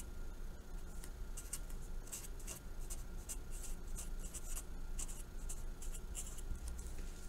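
Felt-tip marker writing on paper: a quick, irregular run of short strokes as letters are written.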